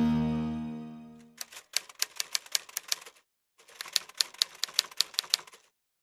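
The song's last chord fades out over the first second. Then come typewriter key clicks in two quick runs of about six a second, with a short pause between them.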